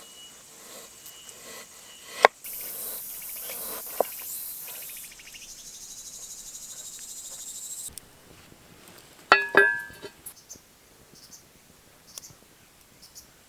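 Insects chirping in the background, with a loud high buzzing insect song that starts suddenly about two seconds in and stops about eight seconds in. A sharp click comes just before the buzz, and a few clicks with a short ringing clink come near ten seconds in.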